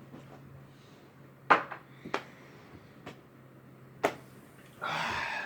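A few sharp clicks, as of hard objects handled or set down, the loudest about a second and a half in. A short hissing rush follows near the end, over a low steady hum.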